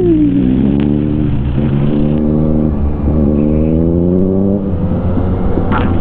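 Yamaha XSR900 inline-three engine accelerating, its pitch climbing steadily for about four seconds, then dropping back at a gear change, over steady wind rush on a helmet microphone.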